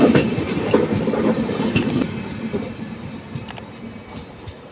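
Passenger train coaches rolling past on the track with their brakes applied, wheels clicking over rail joints a few times; the rumble fades steadily as the train moves away.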